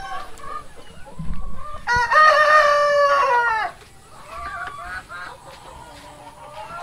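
A rooster crows once, about two seconds in: a call of nearly two seconds that holds its pitch and falls off at the end. Softer chicken clucks follow.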